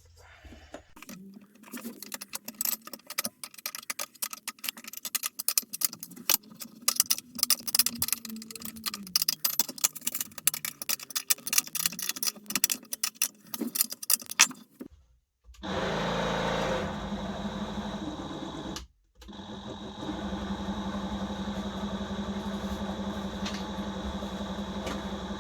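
Homemade lathe driven by a battery-powered DeWalt tool motor. For about the first half there is a dense clatter of clicks and rattles over a motor hum that rises and falls in pitch. After a short break the motor runs steadily with a constant hum and a high whine, cut once for a moment.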